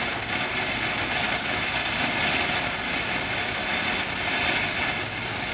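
Ground fountain firework spraying a column of sparks with a steady hiss.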